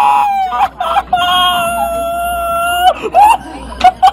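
A person screaming in two long, steady cries, the second held for nearly two seconds, then a few short yelps near the end.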